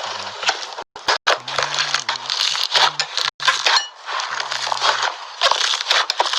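Slime being squeezed and poked, a dense run of crackling clicks and small pops, cutting out abruptly for a moment about a second in and again near the middle.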